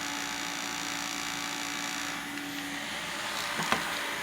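Small USB portable table fan running: a steady rush of air with a low hum that stops about three seconds in, and a small tick near the end.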